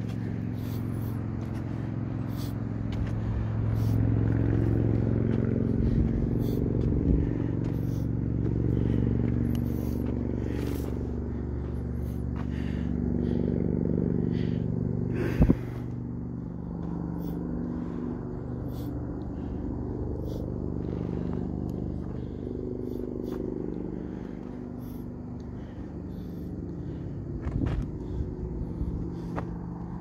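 Distant road traffic, a steady engine drone that swells and fades as vehicles pass, with footsteps on a dirt trail. A single sharp knock about halfway through.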